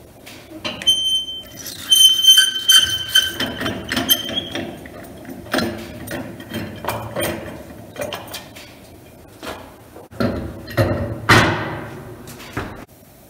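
The wheel balancer's quick-release hub nut is spun off the threaded shaft, with metal clinks, knocks and a ringing note about a second in that lasts a few seconds. The wheel is then pulled off the shaft with knocks and heavier thuds near the end.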